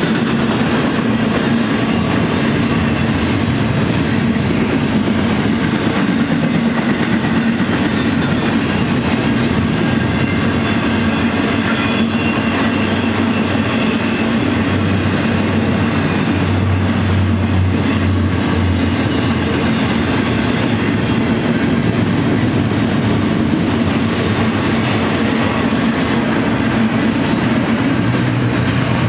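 Double-stack container train's well cars rolling past at a steady speed: continuous wheel-on-rail noise with a low hum underneath.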